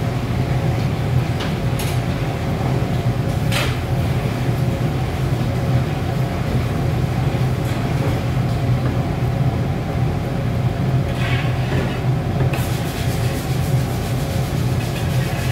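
Steady low rumble of a commercial gas wok burner under a large wok of simmering coconut-milk sauce. There are two light knocks of the ladle against the wok in the first four seconds, and the ladle is stirred through the thick sauce near the end.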